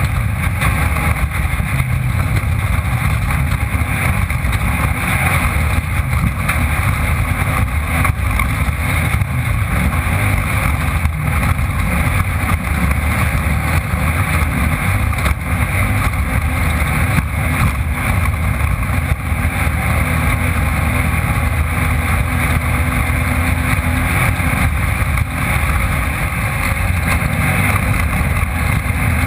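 Off-road race car's engine running hard and steadily at high revs, picked up by a camera mounted on board the car.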